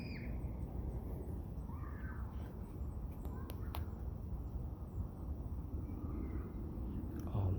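Steady low outdoor rumble, with a few faint short calls in the distance and two sharp clicks about halfway through.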